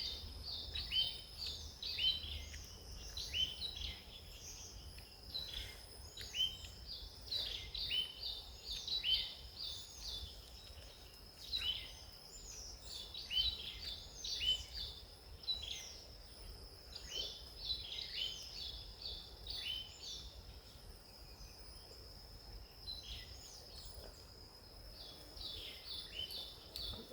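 Forest birds chirping again and again in quick clusters of short, high, falling notes over a steady high-pitched whine.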